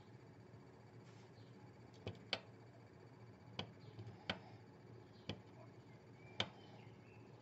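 About six faint, sharp clicks, spaced unevenly over a few seconds, from a small tactile push button on a DIY Geiger counter kit's circuit board being pressed to step its alert threshold setting.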